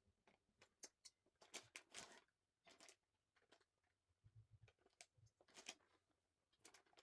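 Near silence with faint, scattered small clicks and rustles of handling: cluster lashes and tools being picked up and set down at close range, with a few soft low thumps about four seconds in.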